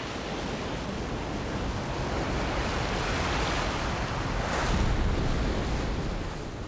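Ocean surf: waves breaking on a beach in a steady rush of water that swells to its loudest crash about four and a half seconds in.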